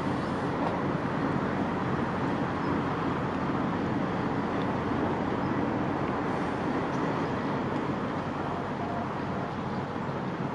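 Inland motor barge's engine running steadily: a constant drone with a low hum beneath a wash of noise.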